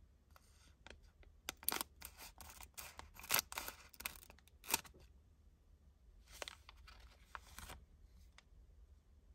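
Scissors snipping across the top of a plastic-foil candy packet: a run of sharp cuts with the wrapper crinkling, the loudest snips a little over a second apart. A few seconds later comes a softer burst of crinkling from the packet and its clear plastic gummy tray, then a single click.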